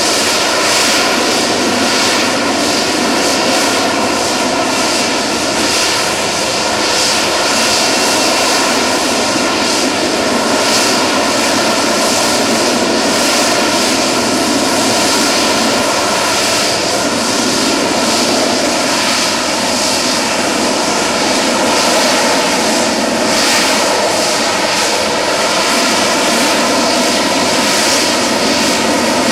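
Sea Harrier FA2's Rolls-Royce Pegasus turbofan running loud and steady, a roar with several held whining tones over it and no big rise or fall in level.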